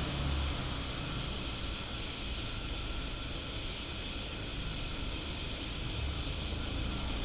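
Brass Anchor-brand 500 c.p. pressure lantern burning with a steady hiss from its burner while it warms up and the mantle burns clean.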